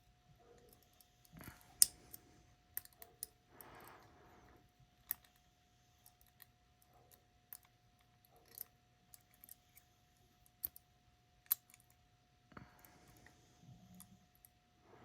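Picking a 4-lever lock: a metal pick and a shaved-down key working the levers and bolt, giving irregular sharp metallic clicks with a few short scraping rustles between them.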